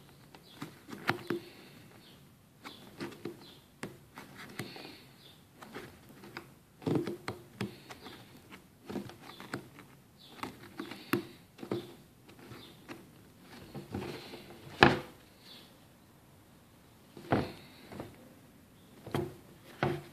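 Irregular plastic clicks, knocks and rustling of hands handling the cabin air filter and its plastic housing cover in a minivan, with one sharper click about fifteen seconds in.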